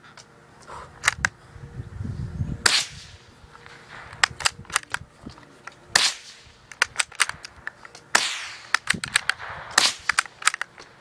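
A bolt-action .22 rifle firing: four loud, sharp cracks a few seconds apart, with many quieter sharp clicks and cracks in between.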